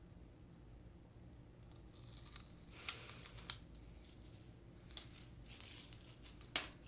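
Biting and crunching into a flower-shaped candy on a stick: after a quiet start, a run of crackly crunches with sharp snaps about three seconds in, again at five seconds and near the end.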